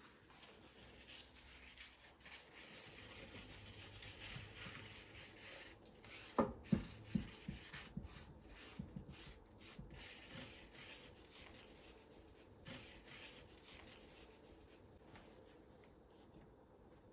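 Soft repeated rubbing sounds, with a few light knocks about six and a half seconds in.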